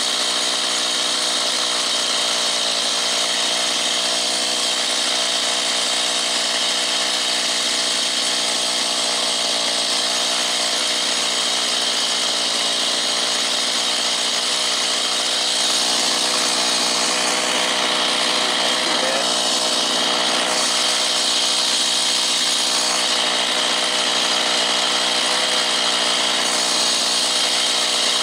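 Two-stroke chainsaw on a chainsaw mill running steadily at full throttle at a constant pitch, ripping a slab from a solid oak log.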